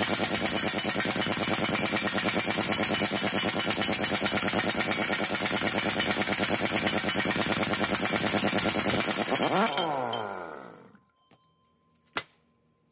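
Harbor Freight 1-inch pneumatic impact wrench hammering continuously on a 3.5-inch rear sprocket nut to break it loose. The trigger is released at about ten seconds and the air motor spins down with a falling whine. A single sharp click follows near the end.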